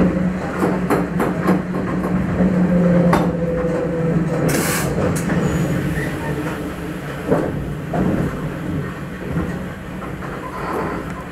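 Electric railcar of the Grütschalp–Mürren railway rolling slowly over the points into the station, its wheels clicking over rail joints and frogs beneath a steady hum that fades in the second half. A short hiss sounds a little before the middle.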